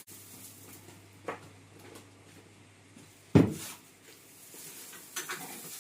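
Quiet kitchen handling sounds: a light click about a second in and one loud knock a little past the middle.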